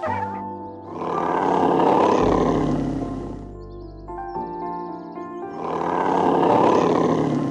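A brown bear roaring twice, each long, rough roar swelling and fading over about two seconds, over soft piano music with held notes.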